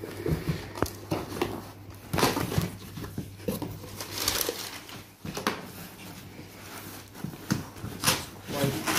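Cardboard boxes being handled: carton flaps scraping and a boxed laptop sliding out of a shipping carton, with packing paper rustling, in a run of irregular scrapes and knocks. A steady low hum runs underneath.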